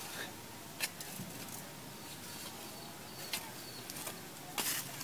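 A shovel scraping into sand three times as sand and coals are dug off a sand pit oven, the last scrape the loudest. Birds chirp faintly in the background.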